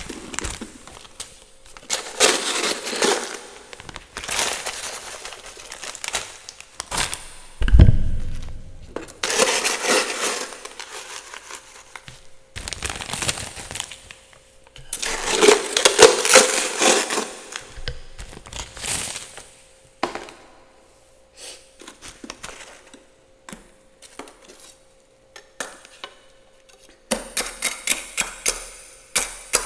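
Frost and ice being scraped off the inside of a freezer in several rough bursts of a second or two, with clinks and cracks as chunks break loose. There is one heavy thud about eight seconds in and a quick run of ticks near the end.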